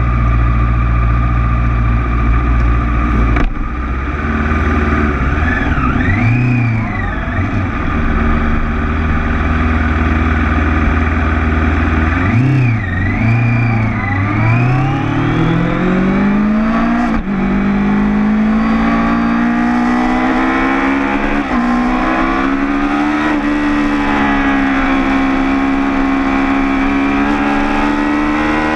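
Sport motorcycle engine idling, blipped twice, then pulling away and accelerating through the gears. A couple of upshifts break the rising engine note, which keeps climbing near the end.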